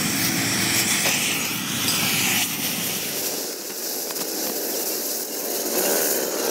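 Oxy-fuel cutting torch hissing steadily as it burns through rusty steel, throwing sparks. The deeper part of the sound drops away about three seconds in.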